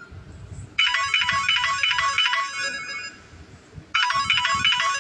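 Samsung Galaxy A14 stock ringtone playing: a quick, repeating run of high electronic notes starts about a second in and fades out, then the same phrase starts again near the end.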